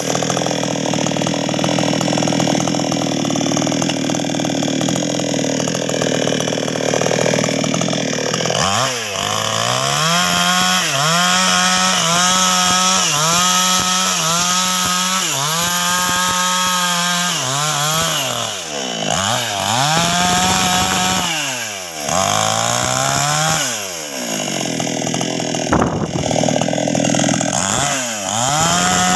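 Nwesst 628 two-stroke chainsaw held at high revs for the first eight seconds or so. It is then blipped in short bursts about once a second, and several times lets its speed drop toward idle before revving up again.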